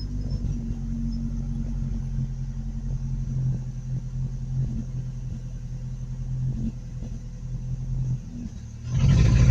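Truck engine idling unevenly, sagging for a moment and then revving up loud about nine seconds in: the engine is struggling to stay running, which the owner takes for it running out of gas.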